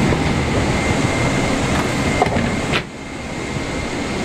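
Steady rush of airliner cabin air-conditioning and ventilation, with a faint steady whine, in a Boeing 777-300ER cabin during boarding. It drops sharply to a lower level just before three seconds in, after a brief click.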